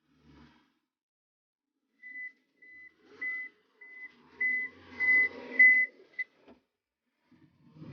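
Backhoe reversing alarm beeping: about seven short, high single-pitch beeps in quick succession, each louder than the last, with a low rumble under the loudest ones.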